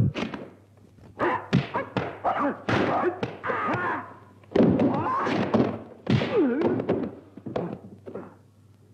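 Fight sound effects from a martial-arts film: a quick run of punch and kick impact thuds mixed with short shouted cries, busiest about halfway through and dying away near the end.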